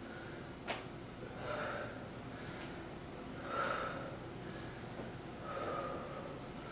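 A woman breathing hard from exertion during a squat workout, with three heavy breaths about two seconds apart. One sharp click comes in less than a second in.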